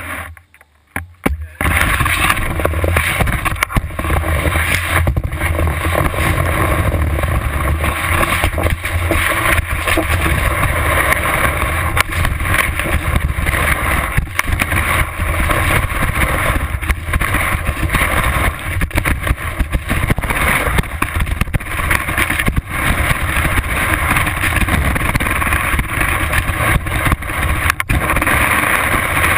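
Skis sliding over snow, with wind buffeting a ski-mounted camera's microphone: a loud, steady rushing rumble and hiss that starts about a second and a half in, once the skier sets off.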